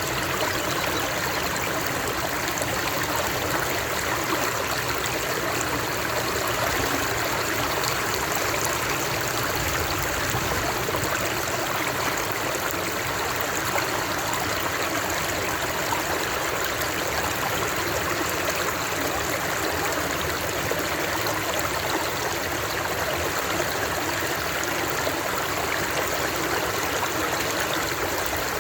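Water flowing steadily over rocks, a running stream with a constant rushing and trickling, unbroken and even in level.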